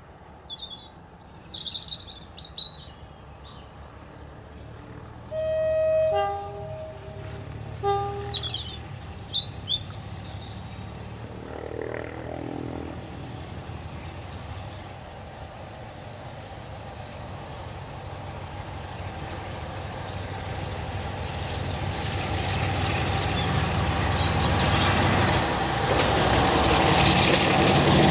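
Birds chirping, then a train horn sounds twice, about five and eight seconds in. After that a diesel locomotive's engine grows steadily louder as the train approaches.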